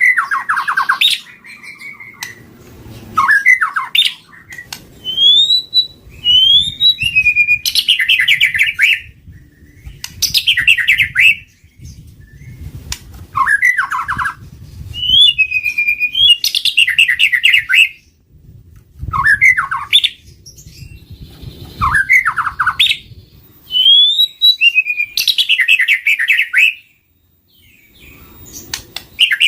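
White-rumped shama singing: loud, varied phrases of clear rising whistles, downward-sweeping notes and rapid trills, one phrase every few seconds with short pauses between. The song is played as a lure call to draw wild shamas.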